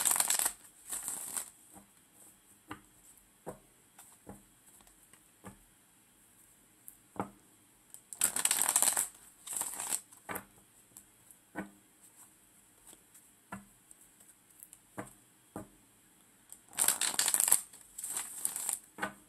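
A deck of cards shuffled by hand in three short bouts, about eight seconds apart, with scattered single clicks in between.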